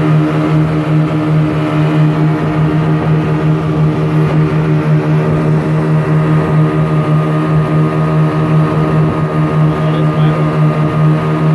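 A motor longboat's three 40 hp engines running steadily under way: a loud, even drone with a strong low hum.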